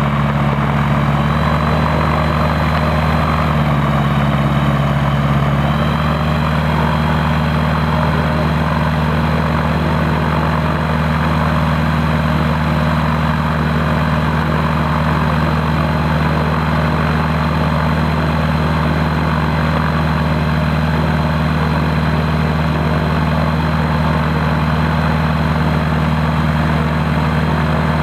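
Gyroplane's engine and pusher propeller running steadily on the ground at low power, with a thin high whine over the engine note. The pitch shifts slightly a couple of times in the first few seconds, then holds steady.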